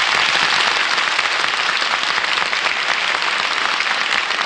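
Studio audience applauding steadily: a dense wash of many hands clapping.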